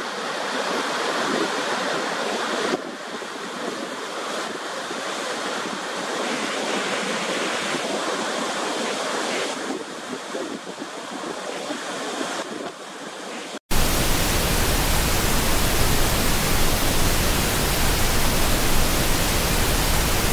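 The steady rushing roar of Niagara's Horseshoe Falls, heard from the brink above the plunge. About two thirds of the way through it cuts off abruptly, and a louder, perfectly even hiss takes over.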